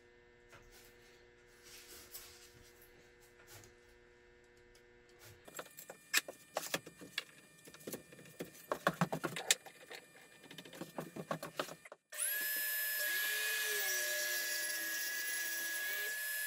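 Clicks and knocks of a bar clamp being tightened and the saw guide being handled. About twelve seconds in, a DeWalt circular saw starts suddenly and runs steadily at a high pitch as it crosscuts a plywood sheet along the guide.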